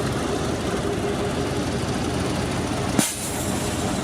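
Heavy diesel truck engine running steadily. About three seconds in there is a single sharp knock.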